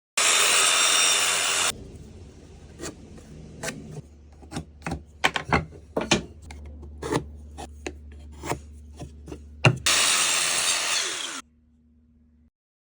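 Woodworking tool noise on wood: a loud rasping stretch of about a second and a half, then a run of irregular knocks and taps, then a second loud rasping stretch that cuts off suddenly.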